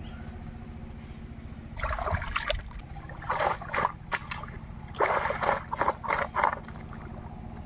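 Pond water sloshing and splashing in and around a plastic basin of fish that is being swished and rinsed, in three spells of irregular splashes over a steady low background.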